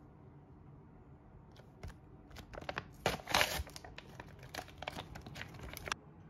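A sheet-mask packet being torn open and crinkled by hand, a run of crackling rustles with the loudest burst about three seconds in, stopping abruptly near the end.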